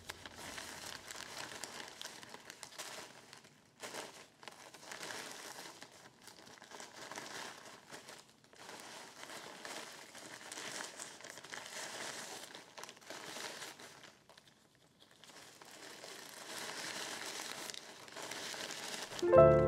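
Plastic poly mailer bags crinkling and rustling as they are handled and packed, with a short lull about three-quarters of the way through.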